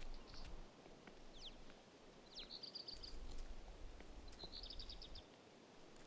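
Bird calls: short high trills repeated about every two seconds, with a few quick downward chirps in between, over faint outdoor ambience.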